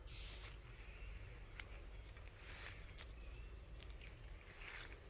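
Insects in the paddy field keep up a steady high trill, with a few short high chirps. Faint soft rustles of footsteps through the rice plants run under it.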